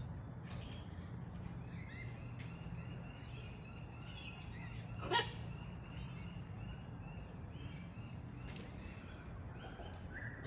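Birds chirping: many short calls scattered throughout, with one short, louder call that sweeps in pitch about five seconds in.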